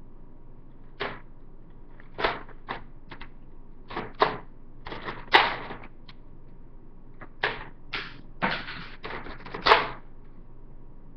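Buzz Bee Hawk toy dart blaster being worked and fired: a dozen or so short, irregular puffs and clacks, with two sharper clicks, one in the middle and one near the end.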